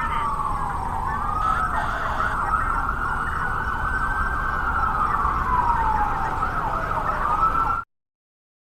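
A siren wailing in slow sweeps, its pitch falling, rising and falling again over several seconds, then cutting off abruptly into silence.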